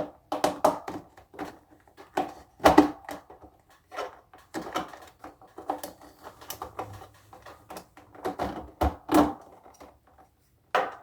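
Cable being handled and pushed into a cable organizer under a desk: irregular clicks, knocks and rustles, with a few louder knocks.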